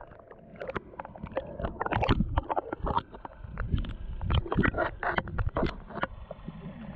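Water sloshing and splashing around a small fishing boat, with irregular knocks and low thumps.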